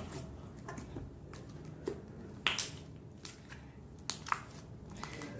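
Rubbery Compound Kings slime being squished and stretched by hand, giving scattered small clicks and bubble pops.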